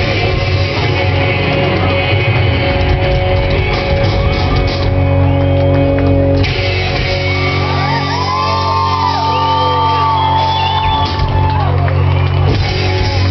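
Live rock band playing, with bass, drums and electric guitar, and a high, bending melodic line, sung or played on lead guitar, over the band in the middle.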